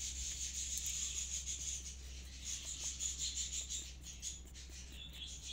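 Insects chirring steadily in the background, a high-pitched, flickering drone, over a faint low steady hum.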